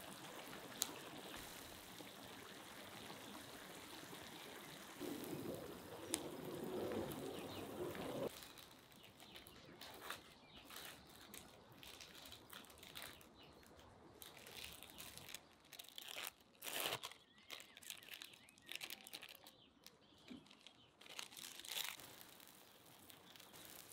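Eggs with sausage and vegetables sizzling steadily in a large round steel pan, swelling briefly about five seconds in. At about eight seconds the sizzle gives way to soft crinkling and tearing as slices of white cheese are peeled apart by hand.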